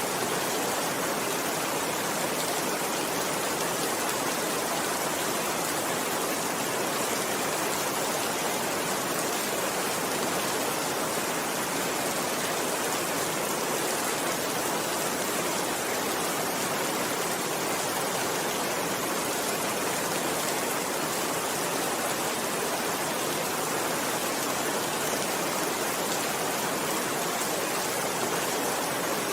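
Steady rainfall, an even hiss that does not change, with no thunder or single drops standing out.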